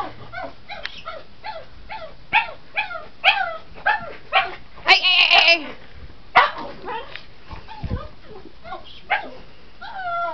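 Pug whining and yipping: a run of short high cries, each falling in pitch, a few a second, with a longer drawn-out cry about five seconds in.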